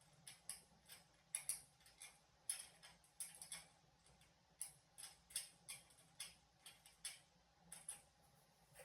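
Faint, irregular small clicks and ticks, about one or two a second, from hand work on a dirt bike wheel as the valve stem is tightened down on the rim.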